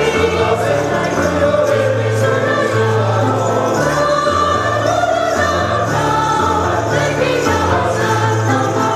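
A choir singing a song to instrumental accompaniment, over a bass line that steps between a few low notes.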